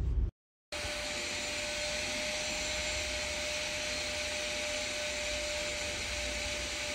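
A motor-driven blower running steadily, a whooshing noise with a faint steady hum. It starts after a short silence under a second in.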